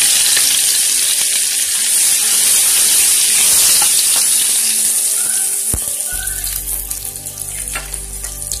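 Chopped onions frying in hot oil in a pressure cooker: a loud, steady sizzle, stirred with a spoon, easing a little after about five seconds.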